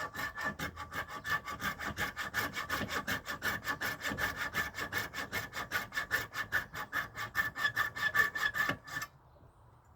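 Hand saw cutting into caribou antler with fast, even back-and-forth strokes, about five a second, stopping about nine seconds in.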